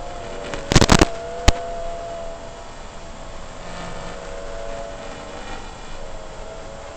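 FPV quadcopter's motors and propellers whining, the pitch drifting up and down with the throttle. A quick cluster of sharp clicks comes just under a second in, and one more single click about half a second later.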